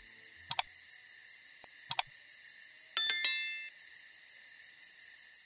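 Animated subscribe-button sound effects: two quick double mouse clicks, then a bright notification-bell ding about three seconds in that rings briefly. Underneath is a steady chirring of crickets.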